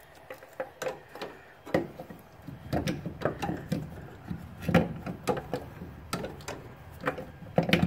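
Irregular clunks, knocks and scrapes of a new engine mount for a 2004 Toyota Matrix being worked by hand down into place, bumping against the parts around it in the engine bay. The sharpest knocks come about two seconds in, near the middle and near the end.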